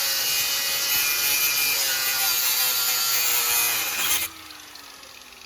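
Angle grinder cutting into a seized steel suspension bolt with a loud, harsh grinding. About four seconds in the cut stops abruptly and the grinder winds down with a falling whine.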